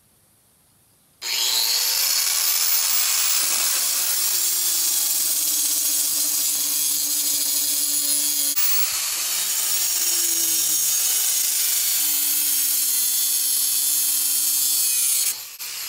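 Corded angle grinder starting up about a second in and cutting through the steel coil springs of a lawn tractor seat suspension, a steady loud grinding with a high whine. It is switched off near the end, its whine falling away.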